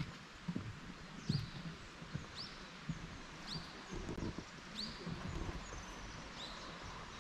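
Footsteps on the wooden plank deck of a suspension bridge at a steady walking pace, about one step every 0.8 seconds. A bird repeats short downward-slurred chirps over them, with a high trill near the end.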